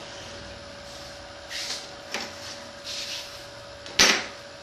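X-Acto knife slicing paper along a metal straight edge on a cutting mat: two short scratchy strokes about a second apart with a small click between them, then a sharp knock near the end, the loudest sound, as the straight edge or knife meets the bench. A faint steady hum runs underneath.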